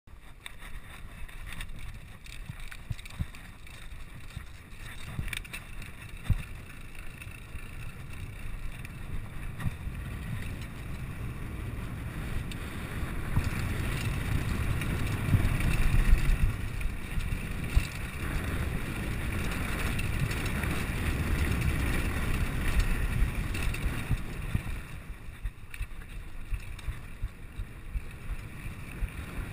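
Mountain bike descending a dirt trail, heard from a handlebar-mounted camera: wind buffeting the microphone and tyres rumbling over dirt, with frequent clicks and knocks as the bike rattles over bumps. It grows louder about halfway through and eases off again near the end.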